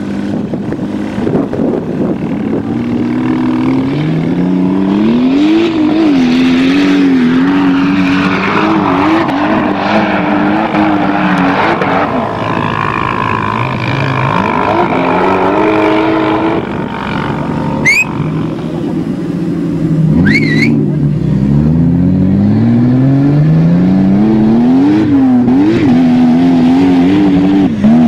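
Toyota Hilux with a swapped 2JZ-GTE twin-turbo straight-six, run hard off-road. The engine pitch climbs and falls again and again through the gears. Two short high chirps come near the middle.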